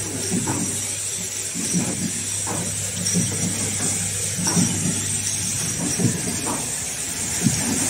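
Automatic cap assembly machine and belt conveyor running: a steady mechanical hum with a high hiss, and irregular short clicks about once a second.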